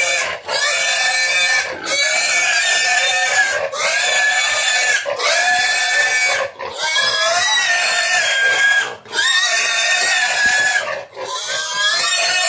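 Pig squealing loudly in long, repeated screams, each about a second or more, with brief breaks between them.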